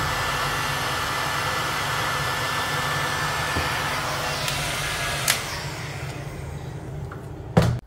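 Handheld electric heat gun blowing hot air with a steady rush. It is switched off with a click about five seconds in, and the rush dies away as the fan winds down. A knock comes near the end.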